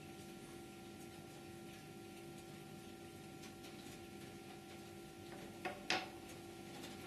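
Two light clicks close together near the end, with faint ticks before them, over a steady electrical hum: the plastic pieces of a 22-part skull model being handled as it is taken apart or put together.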